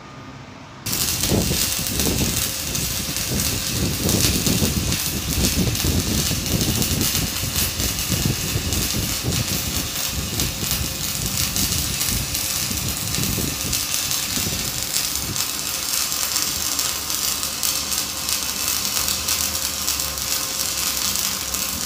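Stick (MMA) welding arc from a Protech MIG/MMA-250A inverter welder set to about 150 A, striking about a second in and then crackling and sizzling steadily as the electrode burns along the steel.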